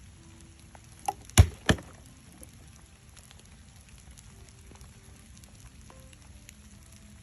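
Three sharp knocks in quick succession about a second in, the middle one loudest, over a faint steady hiss.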